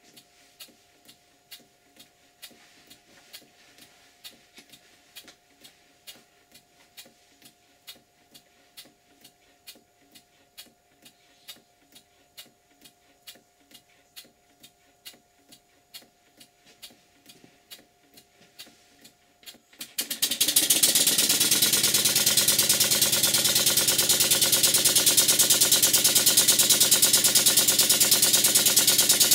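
Stuart Models beam engine running on compressed air, first slowly with faint, even ticking beats about two or three a second. About twenty seconds in it is opened up and runs fast with loud, rapid exhaust beats. The owner thinks the slide valve in the valve chest needs adjusting.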